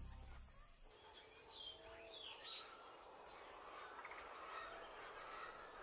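Background music fading out in the first second, then faint outdoor ambience with a few short bird chirps and insect sounds.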